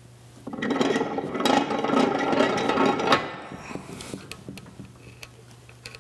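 Dake 1-1/2 B arbor press's rack-and-pinion and ram worked by the handwheel for about three seconds, a loud metallic grinding and rubbing as freshly applied oil is worked into the ram, then a few light clicks.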